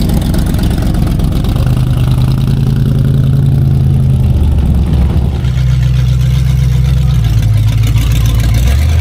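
Classic cars' V8 engines rumbling at low speed as they drive out slowly, the deep engine note shifting in pitch a few times.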